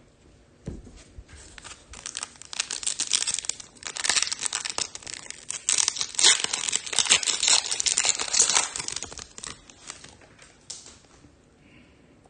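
A foil trading-card pack wrapper being torn open and crinkled by hand, a dense run of crackling and tearing that builds after about two seconds and dies away near the end.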